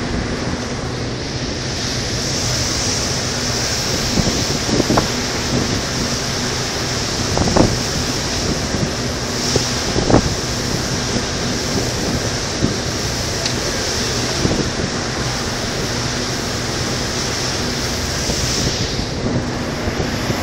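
Wind blowing hard across the microphone, with short gusty thumps, over a tour boat's steady engine drone and rushing water.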